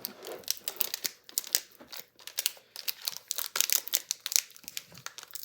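Hockey card pack wrapper being crinkled and torn open by hand: a run of irregular, sharp crackles as the stubborn wrapper is worked at.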